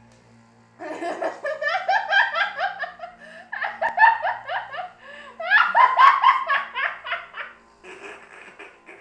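A person laughing hard and helplessly at being tickled by a back massager: high-pitched giggles in quick pulses, in three long fits, the last one quieter.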